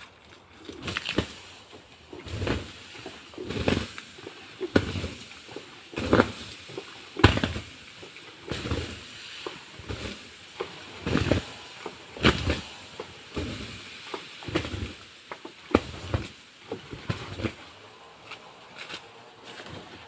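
Water dashed onto the burning coals of an earth charcoal pit, one splash roughly every second, each splash sizzling on the hot charcoal. This is quenching the pit to put out the fire and cool the finished charcoal.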